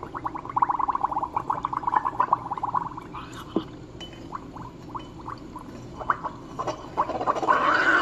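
Steam wand of a SOWTECH CM6811 steam espresso machine frothing milk in a stainless steel pitcher. Rapid bubbling pops come thick and fast for the first few seconds, then thin out. About seven seconds in, a louder, steady steam hiss sets in.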